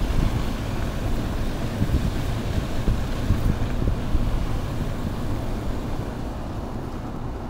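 Car being driven: a steady low rumble of engine and road noise, easing a little toward the end.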